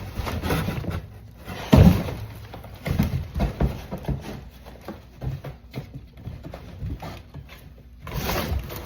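A cardboard box and packing material being handled: rustling, scraping and irregular knocks, with one louder thump about two seconds in.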